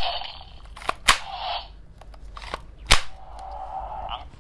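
Electronic sound effects from a battery-powered Shinbi's House toy sword-bow, played through its small speaker after both buttons are pressed: sharp gunshot-like cracks, two close together about a second in and the loudest near three seconds, with hissing, whooshing effects between them.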